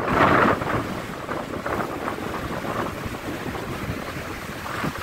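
Stormy sea and strong wind: a rush of waves washing in under the wind, with a louder surge in the first second, then a steady rush.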